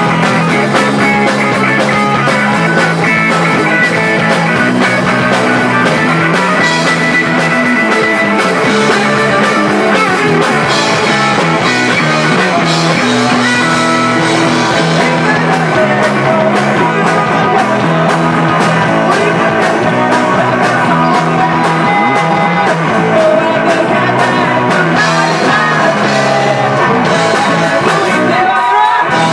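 Live rock band playing: electric guitars, bass guitar and drum kit, loud and steady, with a brief break near the end.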